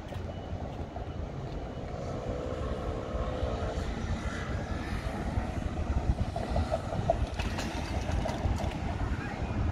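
City street traffic: a steady low rumble of passing vehicles, with a faint hum from a passing vehicle about two to four seconds in.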